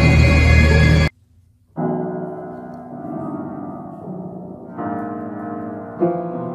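Piano keys pressed under a cat's paws as it walks across the keyboard: clusters of notes struck together, ringing and slowly fading, with new clusters a few seconds apart. Before that, in the first second, a loud dense sound cuts off abruptly.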